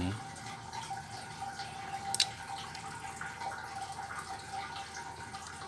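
Quiet room background with a faint steady high hum, and one sharp click about two seconds in.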